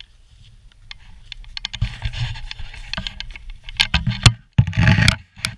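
Close handling noise: rustling, scraping and clicking of gear and a backpack being handled near the microphone, with a run of loud bumps and scuffs in the second half.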